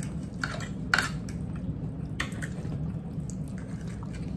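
Wet chewing and lip smacks of people eating, with a few short sharp clicks, the loudest about a second in, over a steady low hum.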